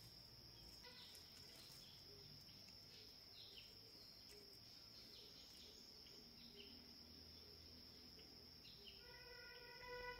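Faint forest ambience: a steady high insect drone with scattered short, falling bird chirps. Near the end a held musical tone with overtones comes in.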